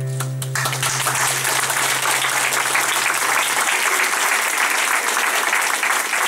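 Audience applauding, starting about half a second in, over the last acoustic guitar chord, which rings on for a few seconds before dying away.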